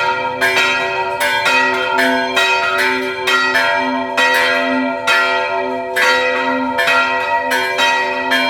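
Two old French cast church bells, rung by pulling their ropes, pealing to call people to Mass. The strokes come in quick alternation, two to three a second, and each one rings on and overlaps the next.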